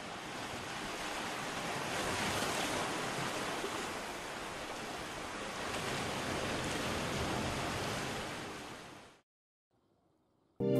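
Sea waves washing as a steady rush of surf. It fades out about a second before a piece of music begins at the very end.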